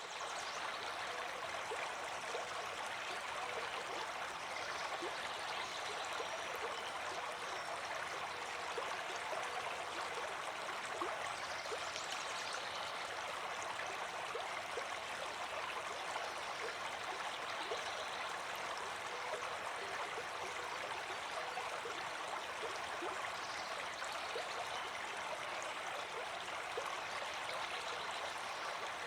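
A river running steadily over stones: continuous rushing and gurgling water.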